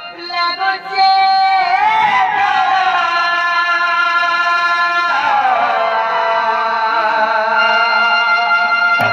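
Sambalpuri danda folk song: a voice holding long, wavering notes that slide from pitch to pitch, over a melodic instrument accompaniment with little drumming, until percussion strokes come in right at the end.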